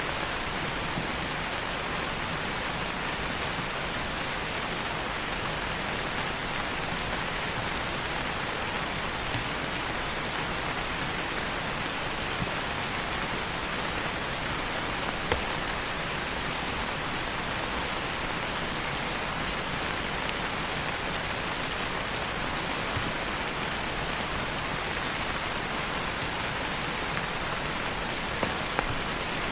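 Steady rain falling, an even hiss with a few faint sharp ticks scattered through it.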